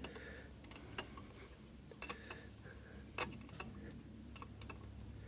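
Scattered light clicks and taps of tools and small metal parts being handled, the sharpest about three seconds in, over a faint steady low hum.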